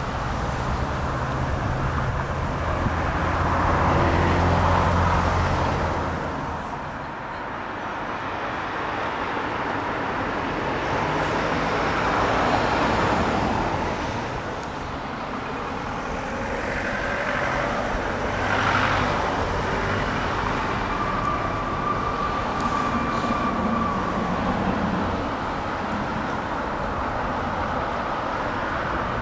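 Road traffic going by, several vehicles passing one after another, each a slow swell and fade in the noise.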